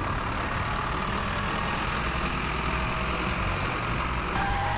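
Sound effect of a truck engine running steadily at a deep, even idle-like pace.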